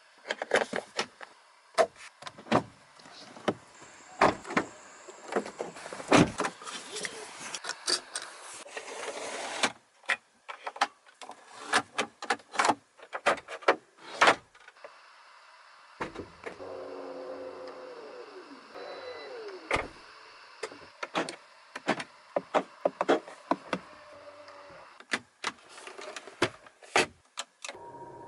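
Volvo XC60 controls and power mechanisms being worked: a long string of sharp switch and latch clicks, with a steady hiss through the first third. Just past the middle an electric motor whines for a few seconds, its pitch falling as it runs down.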